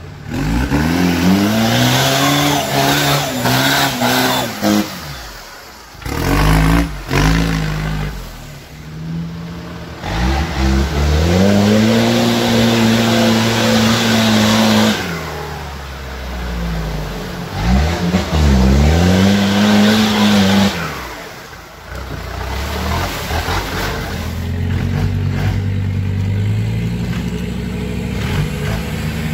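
Off-road 4x4 engines in a Troller and a Toyota Bandeirante revving hard while driving through deep mud. The revs climb and fall in about five long surges, with short dips between them.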